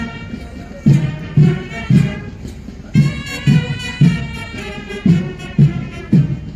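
Brass band playing a march, with a steady bass drum beat about twice a second.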